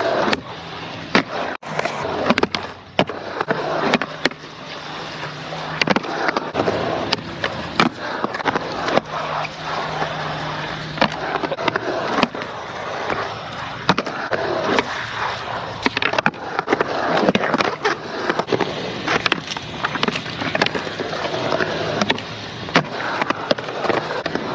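Skateboard wheels rolling over the concrete of a skatepark bowl, a steady rolling noise broken by frequent sharp clacks and knocks of boards and trucks striking the concrete and coping.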